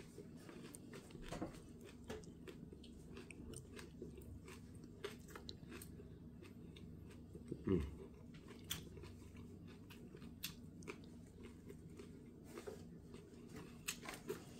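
A person chewing a mouthful of lettuce-and-herb wrap: quiet, close crunching and wet mouth clicks, with one louder low thump about eight seconds in.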